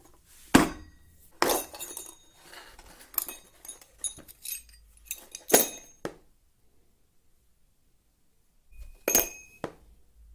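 Steel circular saw blades clinking and ringing as they are handled and set down. A run of sharp metallic strikes for about six seconds, some leaving brief ringing tones, then a pause and two more strikes near the end, one ringing on briefly.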